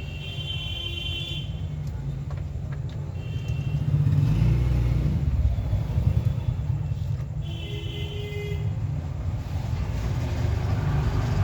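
A steady low rumble that grows louder about four seconds in, with short high-pitched tones near the start, about three seconds in and again about eight seconds in.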